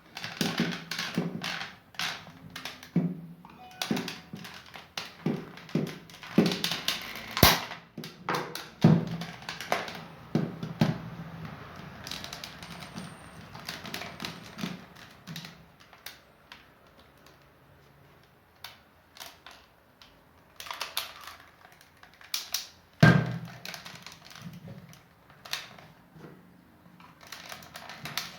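Plastic housing of a Taurus hair dryer being pried apart by hand: irregular clicks, taps and scrapes of plastic, with two louder snaps about 7 seconds and 23 seconds in as the clips let go.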